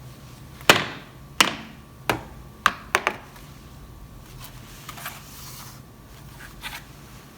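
Hard plastic toy parts being handled and set down: five sharp clicks and knocks in the first three seconds or so, then a soft rustle and a few faint taps.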